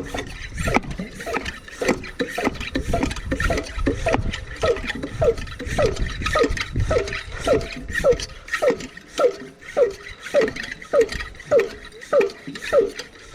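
Hand-pump sprayer being pumped up to pressure: quick even strokes about two a second, each with a short squeaky hiss that drops in pitch as the plunger is pushed down.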